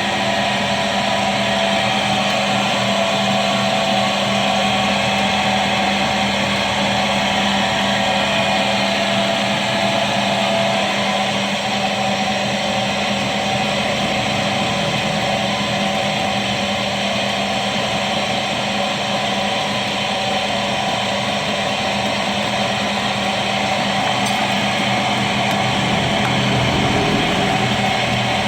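Automatic stone-drilling machine running: its electric drill motor runs steadily with a constant hum under a broad grinding noise.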